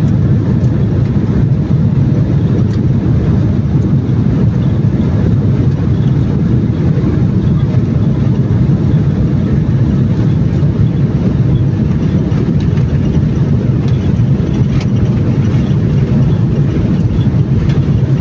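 Airliner cabin noise during takeoff: a loud, steady, low roar of engines and airflow heard from inside the passenger cabin, with a few faint clicks or rattles as the plane shakes a little.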